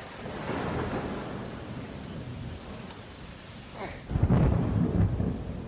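Thunderstorm sound effect: a hiss of rain and rolling thunder, with a heavy, deep thunderclap rumble breaking out about four seconds in.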